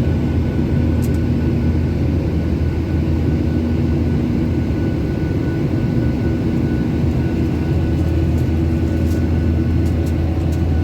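Steady engine and airflow noise inside the cabin of a Boeing 737-800 with its CFM56 engines: a loud, even rumble with a low steady hum.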